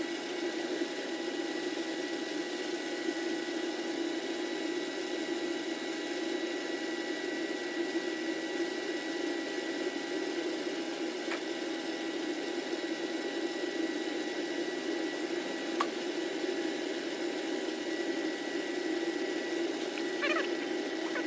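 Torque-Con Taro transmission-fluid exchange machine running, its pump circulating ATF with a steady whirring hum and a thin high whine. Two faint clicks come through in the second half.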